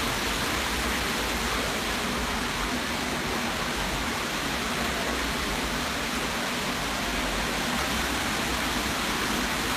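Water rushing steadily through an underground tunnel channel, an even, unbroken rush with no breaks.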